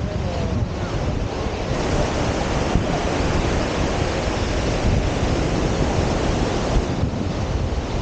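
Surf breaking on a sandy beach in a steady wash, with wind rumbling on the microphone.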